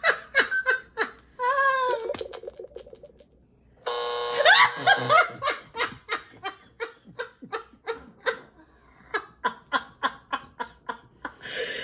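A man and a woman laughing hard, in quick breathy pulses of about three a second. About four seconds in, an electronic buzzer sounds for just over a second over the laughter, marking the answer as a lie.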